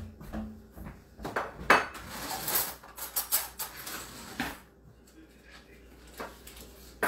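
Dishes and utensils being handled in a kitchen: a run of clinks and knocks for the first few seconds, then quieter, with a single click or two near the end.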